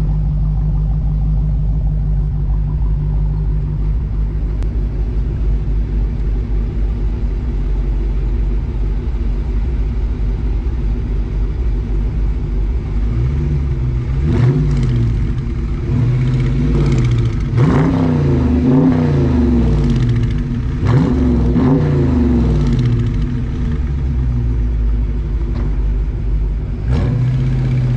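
Dodge Charger R/T's 5.7-litre Hemi V8 idling at the exhaust tip. About halfway through it is blipped in a quick series of revs, each rising and dropping back to idle, with one more rev near the end.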